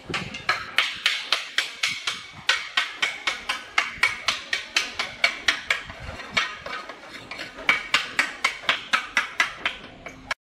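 Hammer striking stone in a rapid series of sharp blows, about four a second, with a couple of short pauses, stopping suddenly near the end.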